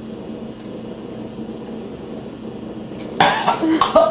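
Low steady room hum for about three seconds, then sudden loud bursts of voice: people reacting with sputtering and exclamations to a sip of vinegar-laced red cabbage solution.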